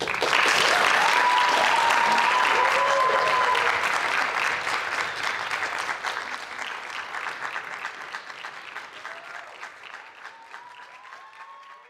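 Audience applause breaking out suddenly, loud at first and then slowly dying away, with a few cheering voices about a second in and again near the end.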